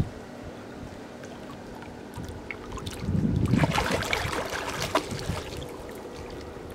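Water splashing and sloshing in a swimming pool as a child swims, louder between about three and five seconds in.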